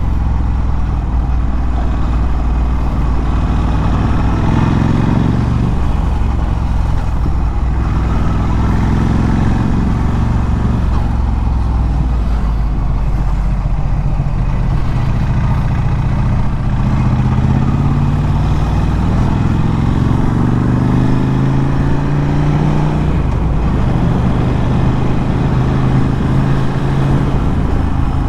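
Ducati Scrambler 1100's air-cooled L-twin through a Termignoni exhaust, ridden along. The engine note climbs under throttle twice, about four seconds in and again past twenty seconds, each time dropping sharply.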